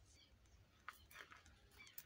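Near silence, with faint short chirping bird calls and a couple of soft clicks about a second in.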